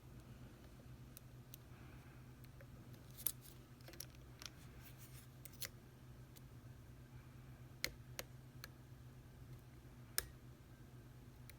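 Scattered small metallic clicks and ticks of a lock pick and tension wrench working the serrated pins of a Mako lock, a few sharper clicks standing out about three, eight and ten seconds in, over a steady low hum.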